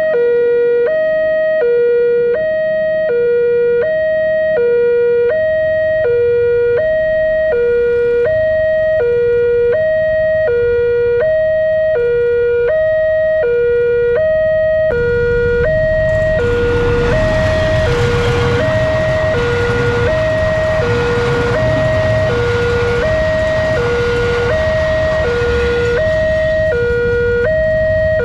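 Railway level-crossing warning alarm sounding continuously, an electronic two-tone signal switching between a higher and a lower note about every three-quarters of a second, the warning that a train is approaching and the barrier is closed. About halfway through, a louder rumbling noise joins it.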